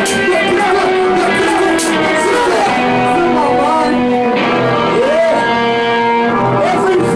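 Live band music: an electric guitar and a keyboard synthesizer playing held, steady tones, with a voice singing into a microphone, its pitch sliding up and down over them.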